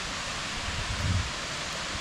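Steady rushing hiss of a waterfall, with a brief low thump about a second in.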